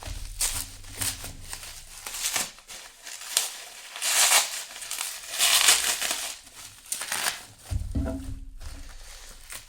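Packaging crinkling and rustling as it is handled and opened, with a few small knocks; the rustling is loudest about four to six seconds in.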